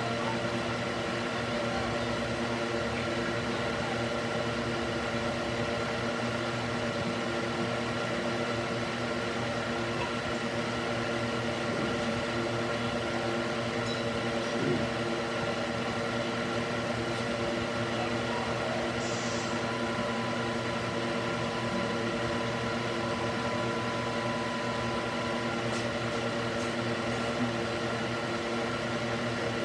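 Cooling fan mounted in a wooden box, running steadily with a constant hum.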